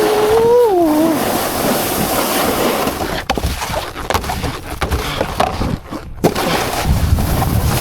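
Snowboard sliding and scraping over slushy spring snow, with wind rushing over the helmet-camera microphone. A short held vocal note opens it and falls away about a second in, and there are two sharp knocks, about three and six seconds in.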